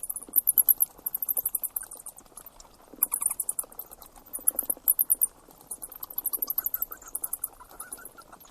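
An animal's rapid, very high-pitched chirping, in short trills that come again several times.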